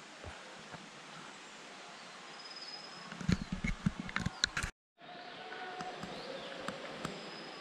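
Mountain-forest ambience with a steady insect drone and a couple of faint high bird whistles. Footsteps on a root-strewn dirt trail come in knocks for a second or two past the middle. The sound cuts out for a moment just before the five-second mark, then the ambience resumes.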